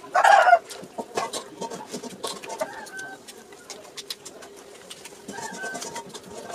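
Eating by hand: scattered sharp clicks and crackles of fingers picking apart crisp fried fish and of chewing, over a faint steady hum. A short, loud call with a pitch to it, about half a second long, comes right at the start.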